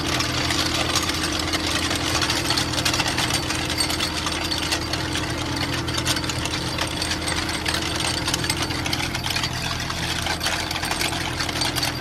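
Fendt 314 tractor's four-cylinder diesel running steadily under load, heard through an open cab window, with a continual clinking rattle from a chain-link meadow harrow being dragged over grassland.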